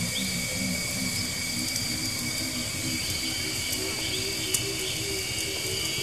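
Jungle ambience: a steady high insect drone with a few short bird chirps, over soft music of short repeated low notes that step up in pitch.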